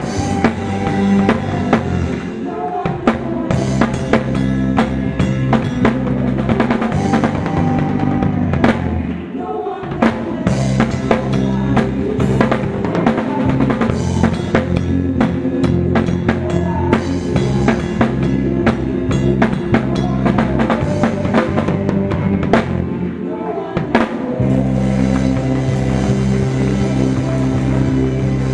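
Live band music with a drum kit up front: kick drum, snare and cymbals played over sustained bass and guitar chords. The band thins out briefly twice, a little before 10 s in and again around 24 s, then comes back in full.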